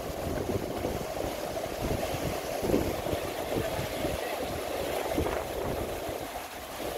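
Stream water running steadily around the wader, with a low rumble of wind on the microphone.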